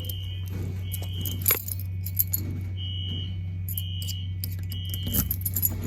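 Fire alarm sounding a temporal-3 evacuation pattern: three short high-pitched electronic beeps, then a pause, then three more, over a steady low hum. A few jingling metallic clinks, like keys, come through several times.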